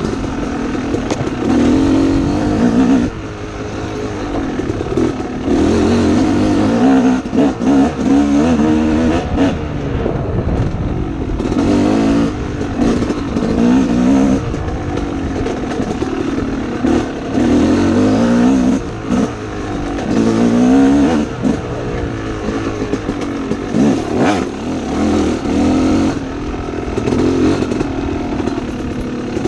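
Dirt bike engine on the trail, revving up and falling off again and again as the throttle is worked, with occasional knocks and rattles from the bike over rough ground.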